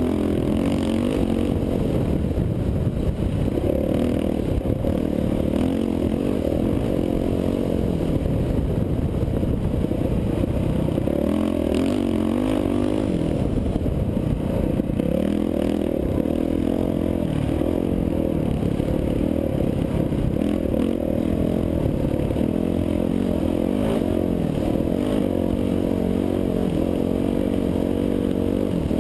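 Dirt bike engine running hard along a sandy trail, its pitch rising and falling as the throttle opens and closes, over a steady low rush of wind on the microphone.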